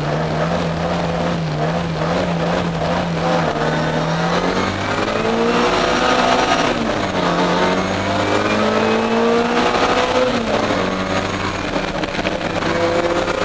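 Austin Mini Cooper's A-series four-cylinder engine, heard from inside the car, held at steady revs at a race start, then climbing in pitch as the car pulls away. The pitch drops twice, near the middle and about three-quarters of the way through, as it changes up a gear.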